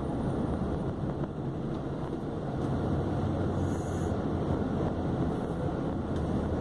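Volkswagen Constellation 24-280 truck heard from inside the cab while driving: steady diesel engine drone and road rumble.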